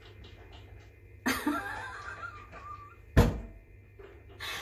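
A woman laughing briefly, then a sharp thump about three seconds in, the loudest sound here.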